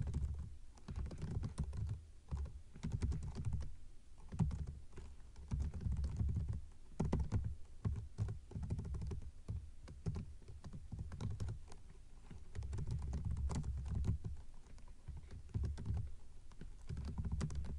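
Typing on a computer keyboard: quick keystroke clicks in uneven runs with short pauses between them.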